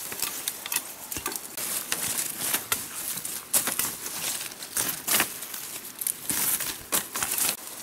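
Rustling and crackling of leaves, twigs and thin bamboo sticks being pushed through and handled, with many irregular snaps and clicks.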